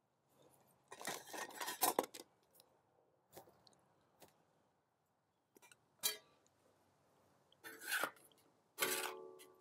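Metal spoon and ladle scraping and clanking against a steel wok as vegetables are tossed: a scratchy scraping about a second in, a few sharp separate clinks, and louder clatters near the end, the last one leaving a brief metallic ring.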